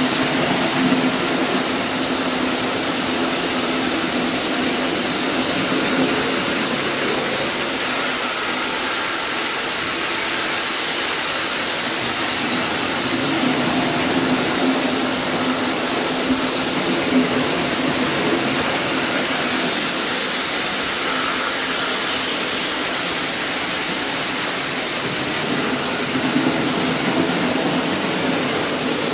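Several Märklin H0 model trains running on the layout's metal track: a steady whir of small electric motors and wheels over the rails, with a constant hiss.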